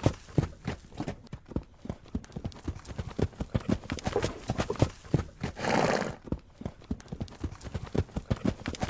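Horse hooves clip-clopping in a quick, even rhythm, as in a hoofbeat sound effect, with a short breathy burst about six seconds in.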